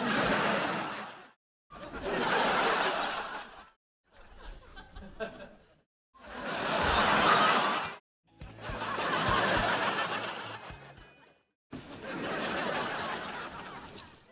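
Canned studio-audience laughter: six separate laugh-track clips, each about two seconds long, played one after another with short gaps of dead silence between them.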